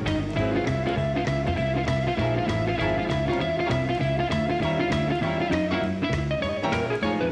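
Live jazz quartet playing: hollow-body archtop electric guitar over upright bass and a drum kit keeping time on the cymbals. A long note is held for most of the stretch.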